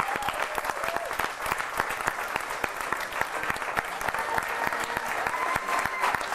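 Wedding guests applauding the newly pronounced couple: steady clapping from many hands.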